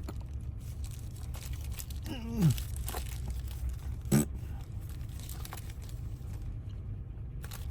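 Faint scattered clicks of small lock parts being handled while fitting a tumbler into a van door lock cylinder, over a steady low hum. A short falling vocal hum about two seconds in and a sharp brief sound just after four seconds.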